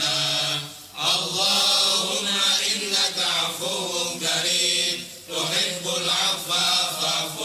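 A voice chanting an Arabic prayer in long melodic phrases with short breaks between them, heard over the radio with a steady hiss behind it.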